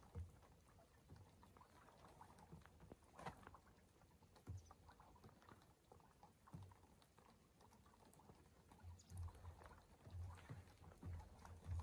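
Near silence: faint light rain with scattered soft ticks, and a few short low thumps in the last few seconds.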